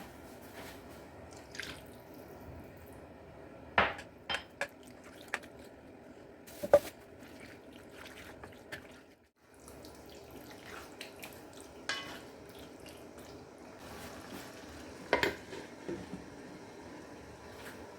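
Kitchen work sounds: a steady low hiss with scattered clinks and knocks of utensils, dishes and pots, about a dozen in all. The sound briefly drops away about halfway.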